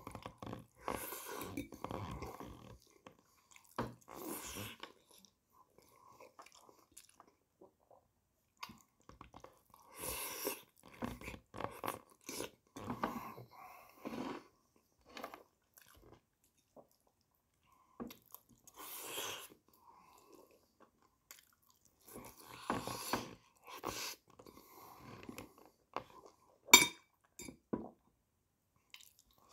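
Close-up chewing of a mouthful of rice in tomato sauce: wet mouth and smacking sounds in irregular bursts with short pauses. A sharp click, the loudest sound, comes near the end.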